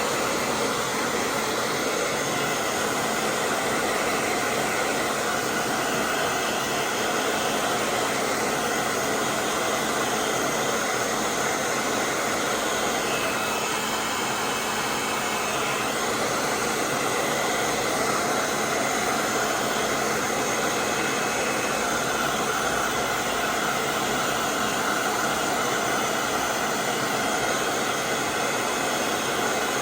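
Steady, even rushing noise of air with no breaks or changes, with a faint thin tone briefly about halfway through.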